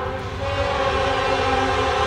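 Norfolk Southern freight locomotive's air horn sounding a held chord of several tones, with an unusual sound for this railroad's horns. It dips briefly about a quarter second in, then sounds on steadily.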